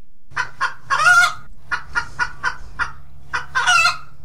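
Chicken cackling: a run of short clucks ending in a long, drawn-out squawk, heard twice, over a faint steady low hum.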